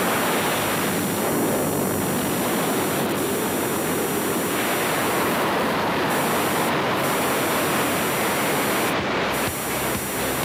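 Steady rush of wind and engine noise inside a small jump plane in flight with its door open.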